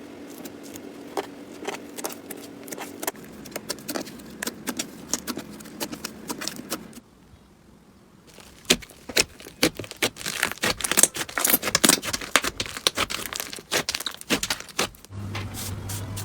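Slime being squeezed and poked, making dense irregular crackling and popping clicks. About halfway through there is a brief pause, and then the crackling comes back busier and louder.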